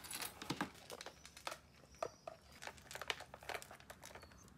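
Pomeranian puppy eating dry food from a plastic bowl: irregular crunching and small clicks of food against the bowl, thinning out near the end.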